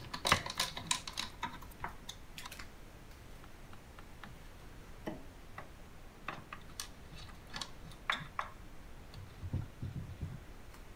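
Screwdriver clicking against the metal transport-lock screws of a Beogram 4000 turntable as they are turned: a quick run of clicks in the first couple of seconds, then scattered single clicks, and a few soft low knocks near the end.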